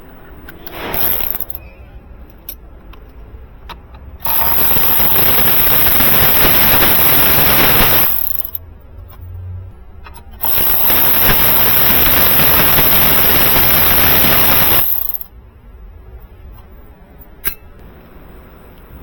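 A power tool running in two long bursts of about four seconds each, backing out two fasteners one after the other. A short softer burst comes about a second in.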